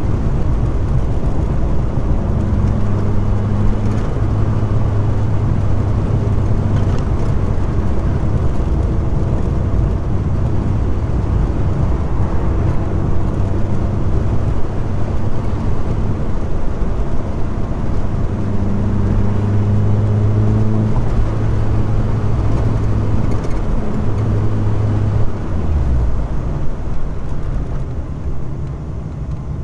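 Car being driven on a city road: a steady engine drone with road and tyre noise, the engine note shifting a little and dropping off about 26 seconds in as the sound eases.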